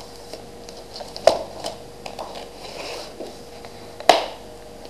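Hands opening a cardboard trading-card box, pulling off the tape and folding back the flaps: faint rustling with two sharp snaps, about a second in and near the end.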